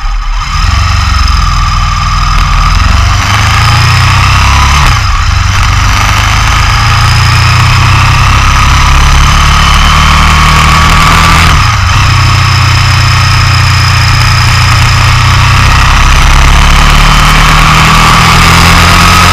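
Motorcycle engine running hard at track speed under heavy wind rush over the low-mounted onboard camera. The engine note breaks briefly twice, about five seconds in and about twelve seconds in, at gear changes.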